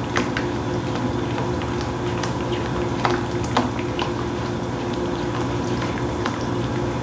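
Homemade cream of mushroom sauce simmering in a pan on a gas burner turned down low, with a steady bubbling and a few sharp pops or clicks, the loudest about three seconds in. A steady low hum runs underneath.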